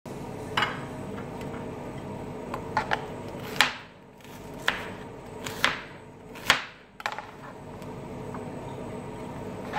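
Kitchen clatter: about eight sharp, irregular knocks of utensils or a knife against hard kitchen surfaces, a few with a short ringing tail, over a steady low hum.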